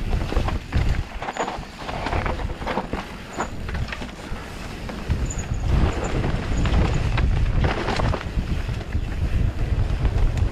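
Wind buffeting the microphone of a mountain bike speeding downhill on a dirt trail, with irregular knocks and rattles as the bike goes over bumps.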